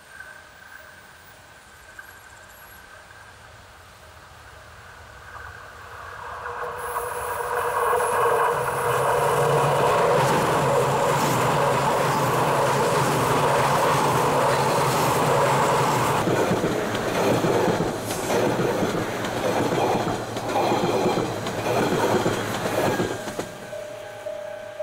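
Shinkansen bullet train approaching and passing close by at speed: a rising rush of noise that stays loud for several seconds. It then gives way to a run of rhythmic wheel clatter over the rail joints as the cars go by, fading near the end.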